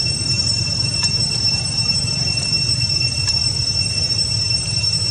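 Steady, high-pitched insect chorus, a continuous ringing drone that does not change, over a low rumble, with two faint clicks, about a second in and past three seconds.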